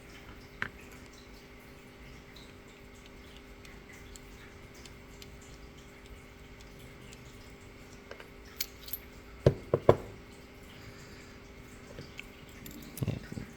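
Small sharp metallic clicks of a disassembled ASSA D12 lock core, its pins and key being handled and the key tried in the core: one click about half a second in, a close cluster of louder clicks about ten seconds in, and a few more near the end, over a faint steady hum.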